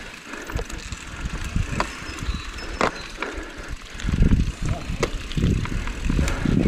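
Mountain bike rolling over a rough forest trail, its tyres rumbling and its frame and parts rattling with scattered sharp clicks over stones and roots. The rumble grows louder about four seconds in.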